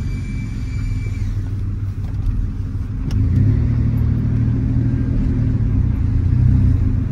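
1995 Chevy S10 pickup's engine and Flowmaster exhaust, heard from inside the cab as the truck drives. About three seconds in the engine note climbs and gets louder as it pulls away, then eases near the end.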